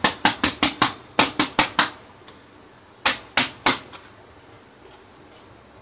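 A Dell laptop keyboard being struck in quick runs of sharp knocks, about five a second, four or five to a run, with a pause of over a second after the third run, to knock dust out from under the keys. Some of its keys had stopped working.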